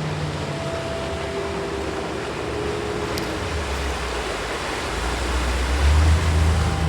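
Steady rushing noise of sea ambience, with a deep low hum growing louder from about five seconds in.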